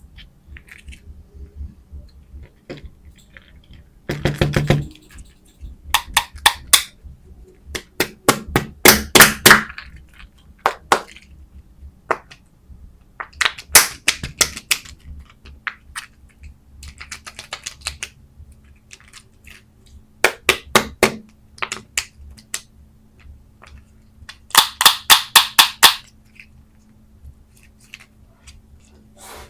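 Quick runs of sharp taps and clicks from candy packaging being handled and tapped, in about six short bursts of several strokes a second with quiet pauses between.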